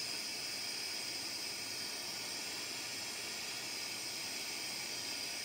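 Handheld gas torch burning with a steady hiss of its flame.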